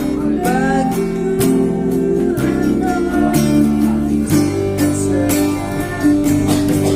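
Acoustic guitar strummed in a steady rhythm, with a voice singing a few notes along with it in places.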